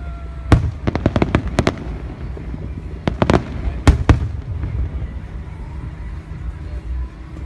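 Aerial fireworks bursting: a quick volley of sharp bangs and crackles about half a second in, another group around three to four seconds in, over a steady low rumble.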